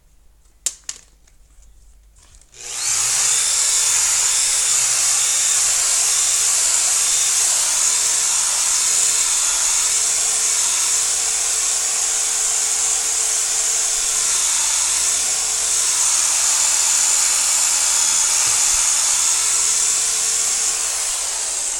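A couple of clicks, then an electric car polisher starts about two and a half seconds in and runs steadily, its pad buffing finishing compound into fresh car paintwork.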